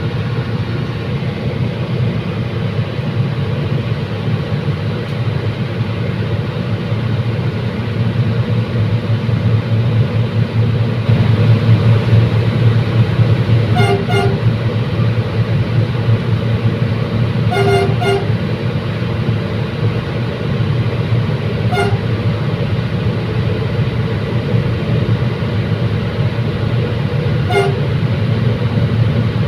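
Diesel commuter train running with a steady low rumble that grows louder about 11 seconds in. Short horn toots sound about 14 seconds in, twice near 18 seconds, and again near 22 and 28 seconds.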